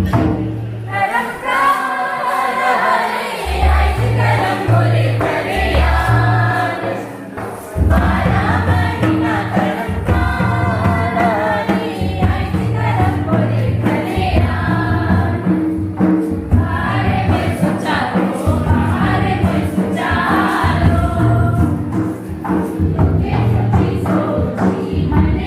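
A group of voices sings a Karam folk song together over a steady, repeating low beat.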